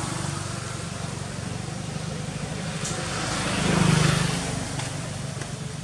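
Low, steady hum of a motor vehicle engine, swelling for about a second around four seconds in as a vehicle passes.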